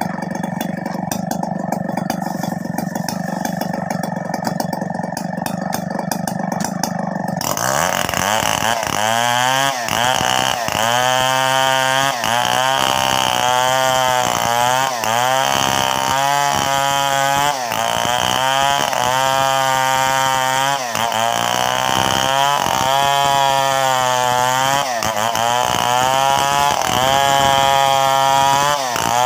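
Two-stroke chainsaw idling, then about seven seconds in opened up to full speed and held in a cut, its pitch sagging and recovering every second or two as the chain bites into the timber.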